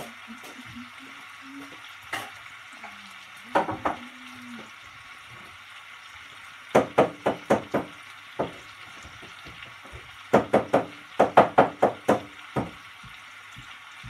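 Spare ribs and tomatoes frying in a pan on a gas hob, a steady faint sizzle. It is broken by a few single sharp knocks and then two quick runs of knocks, about four a second: five about seven seconds in, and a longer run of about nine from about ten seconds.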